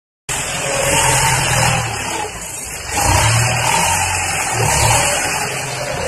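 Farm tractor's diesel engine running under load while its front blade pushes dirt, the engine note rising and falling, with a dip about halfway through.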